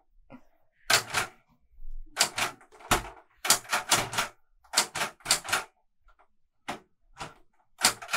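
Keys of a Clover 810S manual Korean typewriter being struck slowly and unevenly, one stroke at a time, in short bursts of a few keystrokes with pauses between.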